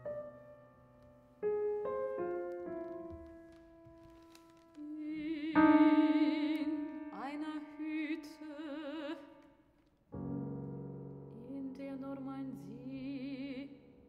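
Soprano singing with wide vibrato over sparse piano chords in a classical art song. The piano plays a few separate chords alone, the voice comes in about five seconds in, pauses briefly, then resumes over a new chord.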